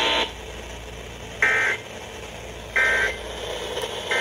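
Emergency Alert System end-of-message code: three short bursts of two-tone digital data warble, evenly spaced about a second and a half apart, that signal the end of the flash flood warning.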